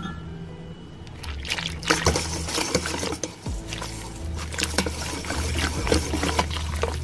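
Wire whisk stirring flour into warm milk and yeast in a stainless steel bowl: quick wet sloshing with rapid clicks of the wires against the metal, starting about a second in.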